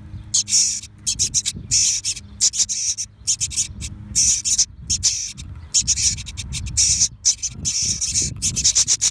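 Songbird nestlings in a cavity nest begging for food: repeated raspy, hissing calls in short runs about once a second.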